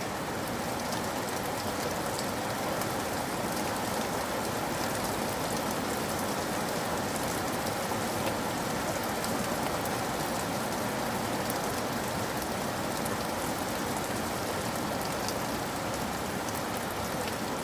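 Heavy rain falling steadily onto the ground: a dense, even hiss of rain with countless fine drop impacts.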